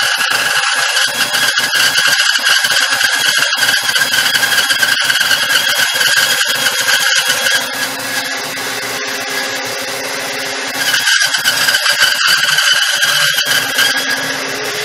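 Bandsaw cutting through a glued-up block of wood, its blade giving a loud, steady high-pitched squealing whine. About eight seconds in the cutting eases and the saw runs quieter, then the cut picks up again around three seconds later.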